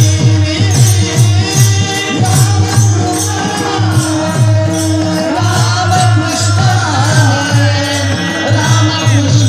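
Kirtan music: a drum keeps a quick, steady beat with small hand cymbals jingling over a held drone, and a man's voice sings a melodic line, most clearly from about halfway through.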